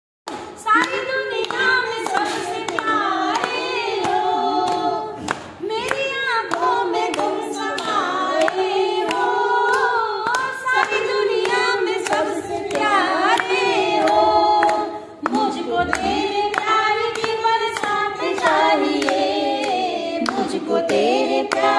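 Women singing a Hindi devotional bhajan, with steady rhythmic hand-clapping keeping time and two short breaks between sung lines.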